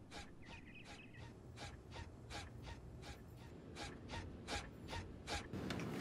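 Faint, evenly spaced soft ticks, about three a second, over a low room hum, with a louder rustle near the end.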